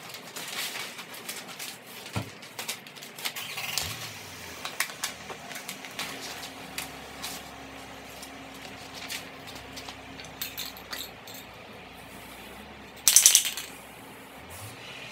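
Masking paper and tape being peeled off a freshly Plasti Dipped car grill, with irregular rustling, crinkling and small crackles. A louder brief burst of noise comes near the end.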